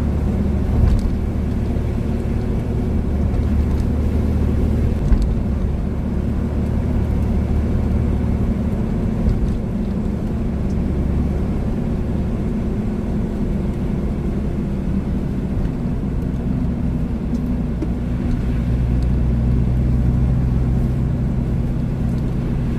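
Nissan Patrol Y60 driving: a steady engine drone with road noise, the engine note changing about two-thirds of the way through, and a light knock about five seconds in.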